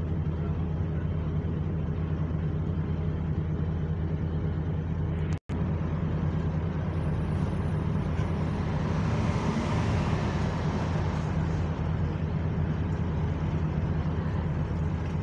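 A double-deck bus's diesel engine idling steadily while the bus stands at a stop with its doors open. A rushing noise swells and fades about nine to ten seconds in. The sound cuts out for an instant a little over five seconds in.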